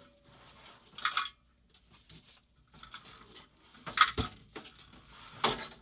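Small metal parts and hand tools clinking and knocking on a workbench during disassembly: a few sharp clinks, the loudest about a second in, around four seconds in and near the end, with light handling noise between.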